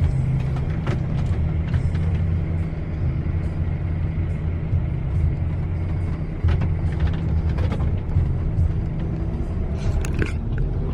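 Scania K410iB tri-axle bus running at a steady cruise: a constant low engine and road drone, with a few short rattles and clicks, the loudest near the end.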